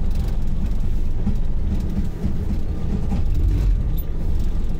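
Motorboat engine running with a steady low rumble, mixed with wind buffeting the microphone.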